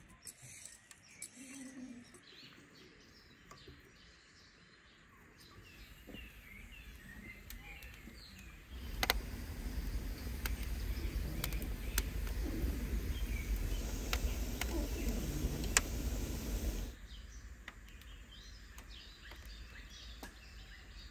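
Birds chirping, then about nine seconds in a wood fire burning inside a domed brick oven comes in for about eight seconds: a steady low rumble with several sharp crackles and pops. It cuts off suddenly and the birdsong returns.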